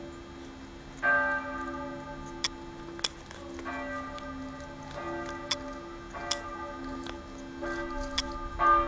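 Bells ringing, with a new chime struck about every one to two seconds and each note fading out, over steady held lower tones. A few sharp clicks sound in between.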